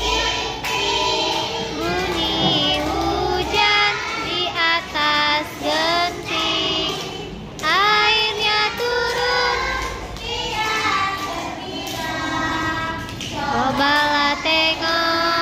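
Children's voices singing a song over music, with high-pitched held and gliding notes.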